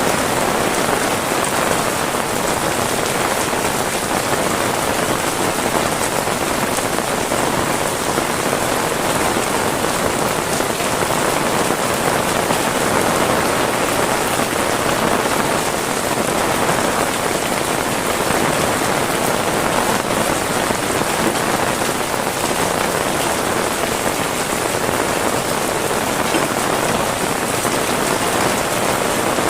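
Heavy rain falling steadily, a dense even patter without let-up.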